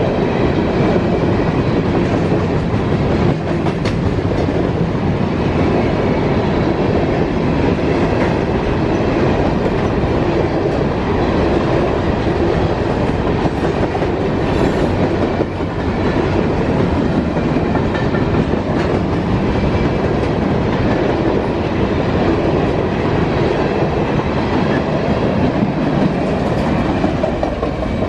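Freight train of covered hopper cars rolling past, a steady loud rumble of steel wheels on the rails with clacking as the wheels cross rail joints.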